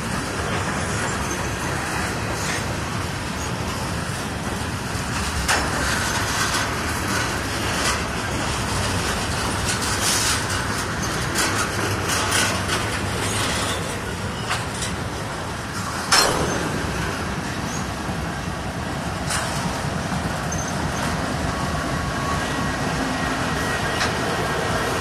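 Freight train passing at close range: steady wheel-on-rail rumble from covered hopper cars, with several sharp knocks, the loudest about 16 seconds in.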